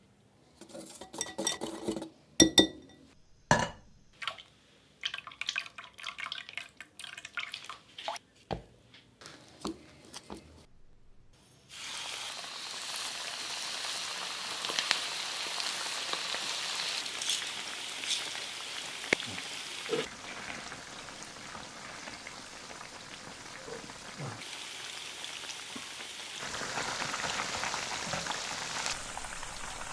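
Spoon and utensil clinks and taps against a bowl, then a steady sizzle of chicken wings frying in hot oil, with scattered crackles and pops.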